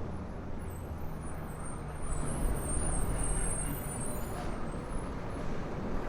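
A motor vehicle passing on the street, a low engine rumble that grows louder about two seconds in, with faint high-pitched chirps or squeaks above it.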